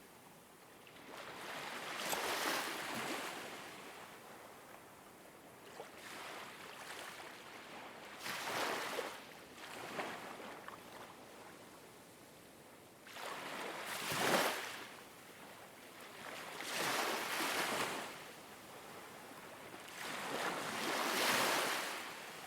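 Ocean waves washing in, each swell of surf rising and falling away over a second or two, five times at uneven intervals over a steady wash.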